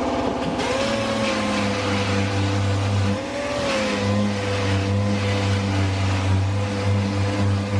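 Small 5-inch orbital sander with 40-grit paper running on the sheet-metal back of a truck cab, with a steady motor whine and the hiss of sanding. Its pitch climbs about half a second in, then sags and recovers a few seconds later as it is pressed into and eased off the metal.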